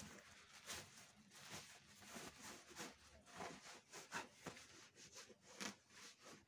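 Faint rustling of cloth and plastic as bags and clothing are handled, in many short irregular bursts.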